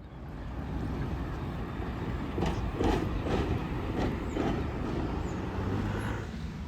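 A vehicle running with a steady low rumble, with a few short clacks or rattles in the middle.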